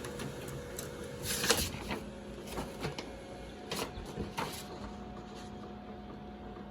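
HP Color LaserJet Pro MFP 4301fdw laser printer running: a faint steady hum with a few sharp mechanical clicks and short rustles in the first half.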